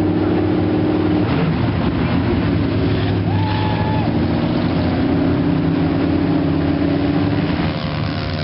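Engines of lifted off-road trucks and ATVs running at low speed, a steady droning hum whose pitch shifts a little over a second in. Near the end the hum falls in pitch as an engine slows.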